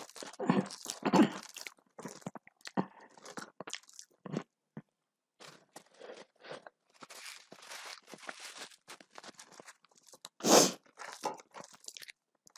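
Close-up chewing and crunching of a person eating a meal of rice, dal and vegetables by hand, in short irregular bites with pauses between; the loudest crunches come about a second in and again a little after ten seconds in.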